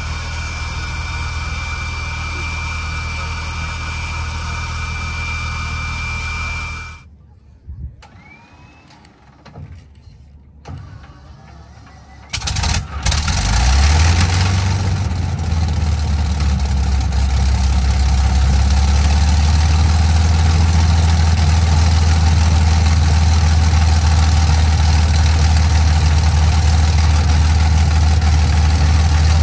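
A steady machine hum with a high whine cuts off suddenly about seven seconds in. About twelve seconds in, the de Havilland Mosquito's Rolls-Royce Merlin V12 engine catches with a loud burst, rises briefly in pitch and settles into a steady, deep idle.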